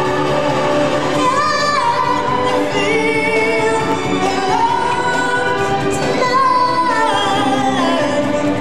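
Live stage-show music: a woman sings a long, sliding melody over sustained backing.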